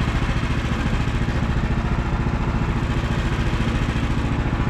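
Engine idling steadily with an even, rapid pulsing.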